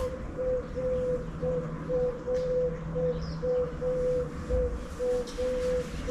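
A bird calling with one low hooting note, repeated evenly about twice a second.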